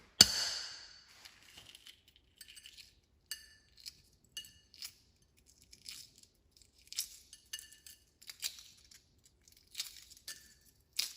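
Shell of a hard-cooked egg being cracked and peeled by hand: one sharp crack right at the start, then scattered small crackles and ticks as pieces of shell are broken and picked off.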